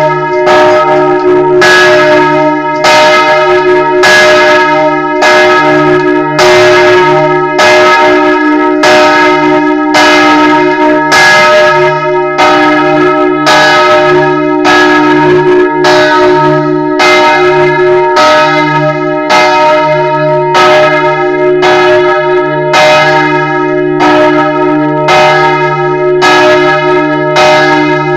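A bronze church bell swinging in full (en volée), struck by its clapper about once every 1.2 seconds in a steady rhythm. Its tones ring on between strikes. It is loud and heard close up from inside the belfry.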